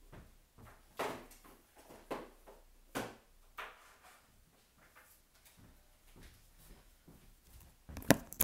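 Light, scattered knocks and clatters of someone rummaging for card decks, with a sharper knock near the end.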